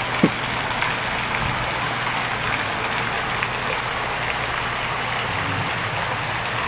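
Small pond fountain jet spraying and its droplets falling back onto the water, a steady splashing hiss. A single brief click about a quarter second in.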